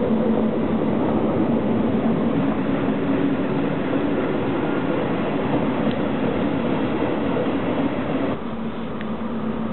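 Swiss Federal Railways (SBB) Regio electric commuter train passing, a steady rumble of wheels on rail with a humming tone running through it. Near the end the level drops suddenly.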